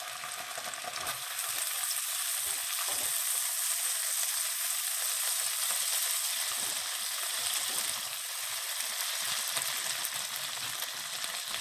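Ginger-garlic paste and chopped onions sizzling in hot butter and oil in a kadhai, a steady frying hiss.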